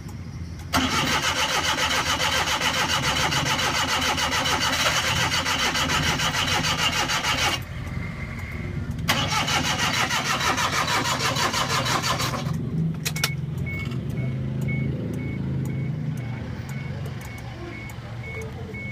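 Suzuki Every EFI van's starter cranking the engine for about seven seconds without it catching, then, after a short pause, a second crank of about three seconds after which the engine runs: a hard start. A faint short beep repeats after the engine is running.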